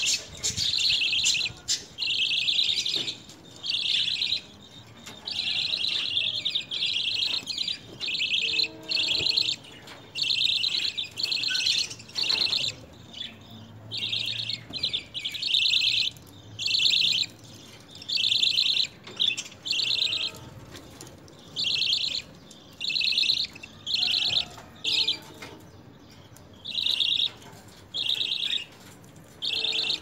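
Budgerigars chattering: short bursts of high chirping, about one every second or so, with brief pauses between them.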